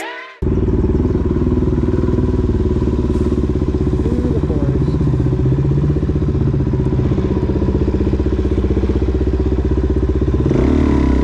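Single-cylinder dirt-bike motorcycle engine running at a steady speed while riding, heard from on the bike. It picks up a little about ten and a half seconds in, after a brief cut-off of music at the very start.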